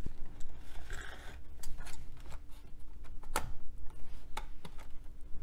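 Clicks and taps of an IBM Travelstar hard drive's metal caddy being slid back into the drive bay of a Dell Inspiron 8000 laptop, and of the plastic housing being pressed, with a short scrape about a second in and a sharper click about three and a half seconds in.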